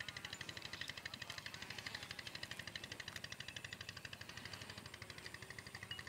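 A small engine running steadily with a rapid, even beat of more than ten pulses a second.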